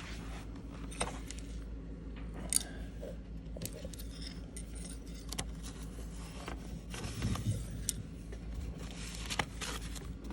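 Hands working on a dishwasher door: scattered light clicks, taps and scraping, busiest in the second half, over a steady low hum.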